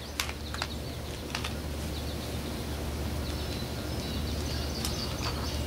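Quiet outdoor background: a steady low hum with a few faint clicks and faint bird chirps.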